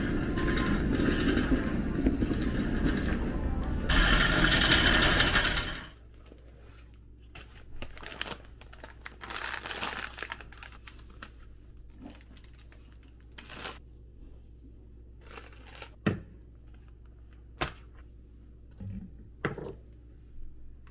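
Plastic shopping bags and food packaging rustling loudly amid supermarket noise. About six seconds in it cuts to a quiet room, where crinkly plastic packages are handled and set down, with a few light knocks on a counter.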